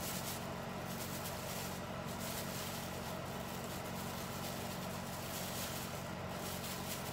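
Steady low hum with an even hiss from kitchen appliances running while chicken fries, constant throughout.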